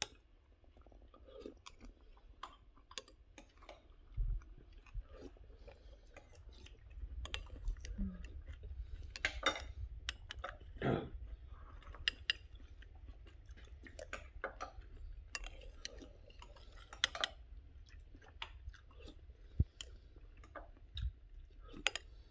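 A person chewing a soft tapioca-pearl dessert, with many short wet mouth clicks, and a metal spoon clicking now and then against a glass bowl.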